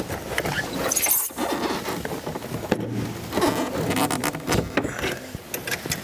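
A light aircraft's removed engine cowling being carried and set down: a run of irregular scrapes, knocks and rubbing sounds, with a sharp hissy scrape about a second in.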